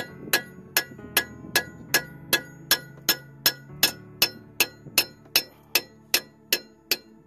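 Hammer blows on a steel bolt in a car's front strut bracket, about eighteen even strikes a little over two a second, each with a short metallic ring. The bolt is being driven out of the strut-to-knuckle bracket with its nut threaded back on flush so the threads are not damaged.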